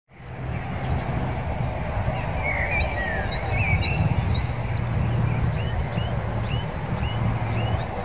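Several songbirds chirping and whistling over a steady low rumble of background noise. One bird repeats a quick run of high notes near the start and again near the end.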